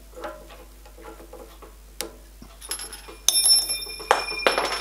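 Small steel Allen key dropping and clattering on metal: two sharp strikes about a second apart, each ringing on with high tones, then a brief rattle as the key is lost. Faint small clicks of handling at the drill chuck come before it.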